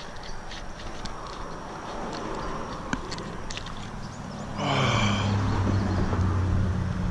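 Spinning reel being cranked on a fishing rod, with scattered light ticks and handling noise over a steady outdoor hiss. About four and a half seconds in, music with a steady low bass comes in and becomes the loudest sound.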